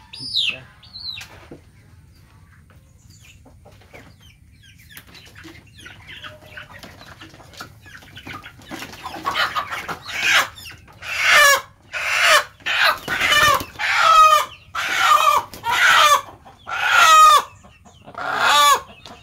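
Chicken being caught and held by hand, squawking in loud repeated distress calls, roughly one a second, each sharply falling in pitch, from about halfway through. A few short high chirps come near the start.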